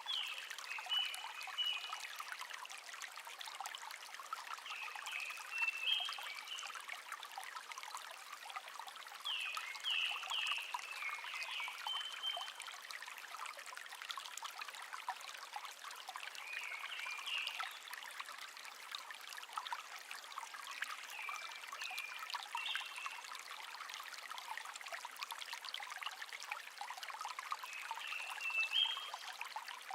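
Shallow stream babbling steadily, with a songbird singing short, quick phrases of a few notes every four to six seconds, six phrases in all.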